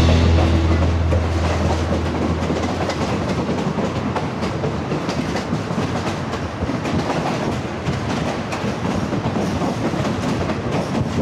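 Inside a Thai State Railway passenger coach running slowly: a steady rumble with many small clicks and rattles from the wheels on the rails and the rocking carriage.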